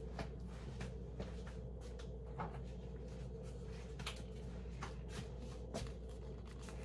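Faint, scattered taps and light knocks of spice containers being handled while seasoning raw chicken, over a low steady hum.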